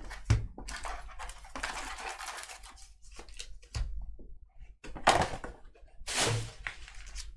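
Paper envelopes and card packs rustling and tapping as they are handled and stacked on a table, in several short bursts.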